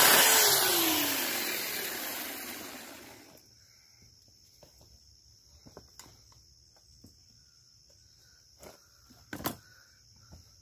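Small electric chainsaw's motor and chain spinning, the whine falling in pitch as it winds down to a stop over about three seconds. Then a steady faint high hiss of insects, with a few light clicks and a sharper tap near the end.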